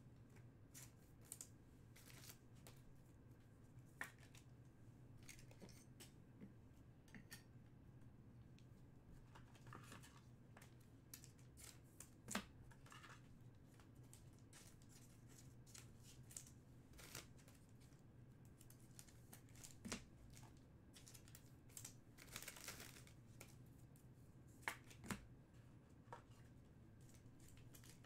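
Faint scattered clicks and brief rustles of trading cards being handled and sorted, over a low steady hum.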